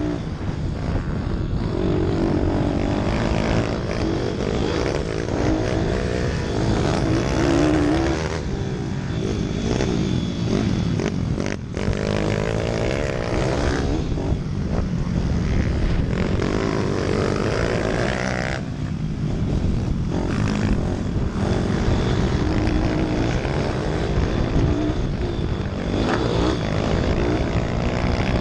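Minibike engine at race pace, close to the helmet-mounted camera, its revs rising and falling through gear changes and corners. The engine briefly drops off about twelve seconds in.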